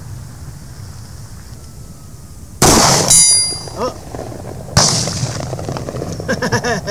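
Two shots from a Staccato C2 pistol, about two seconds apart. A brief high ringing follows the first shot.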